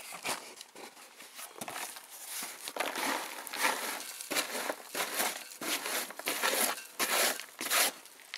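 Dry beech wood chips rustling and crunching as they are shaken out of a cardboard box and pushed by hand into a smoke-generator pipe, with the cardboard box rustling too: an irregular run of short rustling bursts.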